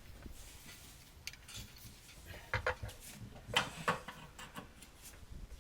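Metal hand tools clicking and scraping against the corroded mounting screws of an old garbage disposal: a few scattered short clicks and scrapes, the loudest about three and a half to four seconds in.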